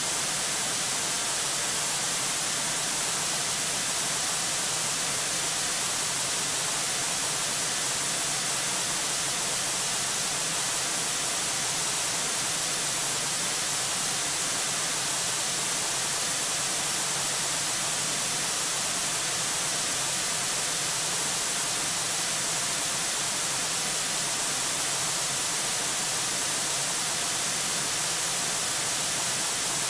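Steady, unchanging hiss of static from the eagle cam's live audio feed, brightest in the high range, with nothing else heard.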